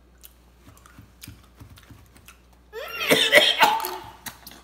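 Faint chewing clicks, then about three seconds in a loud gagging, coughing outburst lasting over a second: the reaction to a Bean Boozled jelly bean tasting of dishwashing water.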